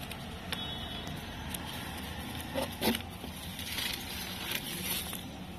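Hand rummaging through wood-pellet bedding and hay in a cardboard hamster box: rustling and scattered clicks, with two louder knocks about halfway through, over a steady low background hum.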